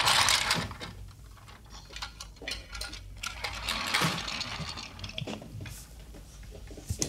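A child handling small objects: a run of light clicks and ticks, with louder rustling at the start and again about four seconds in.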